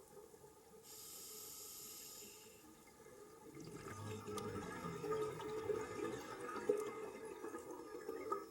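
Scuba diver breathing through a regulator underwater: a steady hiss of air drawn through the demand valve for about two seconds, then a longer, louder burble of exhaled bubbles.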